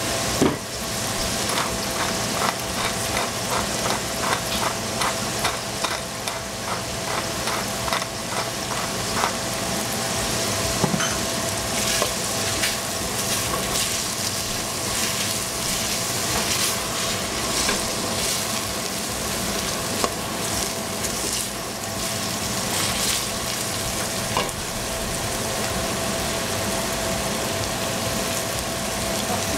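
Shredded vegetables frying in oil in a stainless steel pot, stirred with a wooden spatula. A steady sizzle runs under quick scraping and clicking strokes of the spatula against the pot, which come in a regular run during the first several seconds.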